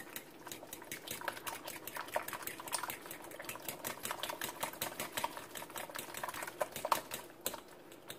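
Metal fork scrambling a raw egg in a glass mixing bowl: rapid, uneven clicking and tapping of the tines against the glass.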